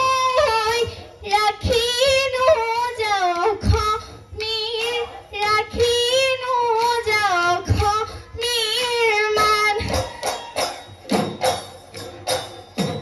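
A girl singing a Bihu song in a high voice with wavering, ornamented pitch, with an occasional low drum beat under it. About ten seconds in the singing stops and drums with jingling percussion take up a fast rhythm.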